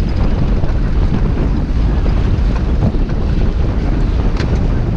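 Wind blowing hard across the microphone, with water rushing past the hull of a sailboat under way.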